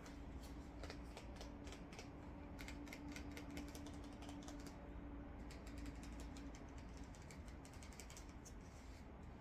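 A quiet run of quick, irregular light clicks and taps, over a faint steady hum that fades out about three-quarters of the way through.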